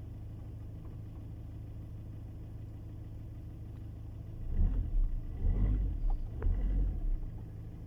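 Volkswagen Tiguan 2.0 TDI diesel idling with a steady low hum. About four and a half seconds in, a loud, uneven low rumble with knocks lasts for about three seconds. The owner takes this shaking at cold idle for the start of dual-mass flywheel failure, which the engine electronics cannot smooth out.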